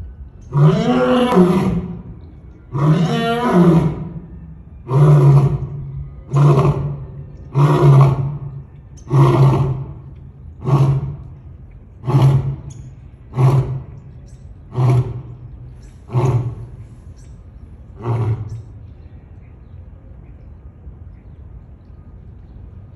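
African lion roaring: two long roars, then about ten shorter grunting calls roughly a second and a half apart that grow shorter and fainter, the last one about eighteen seconds in.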